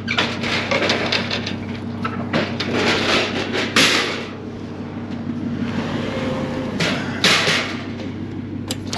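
Metal clanking and rattling as the steel mesh tailgate of a utility trailer is lowered and its frame knocks about, in several rattly bursts, with more sheet-metal clatter from an aluminium diamond-plate sheet near the end. A steady low hum runs underneath.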